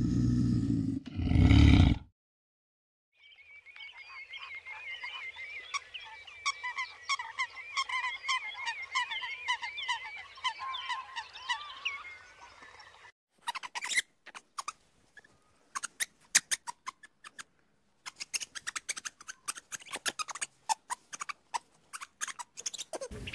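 A brief low rumble, then about ten seconds of rapid, repeated wavy calls from a swamphen. After that comes a run of sharp clicks and taps.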